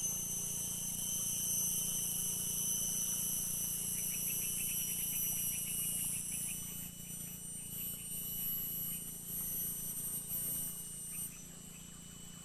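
Insects, crickets or similar, chirring in a steady high-pitched chorus at several pitches. A rapid pulsed trill stands out about a third of the way in and fades after a couple of seconds.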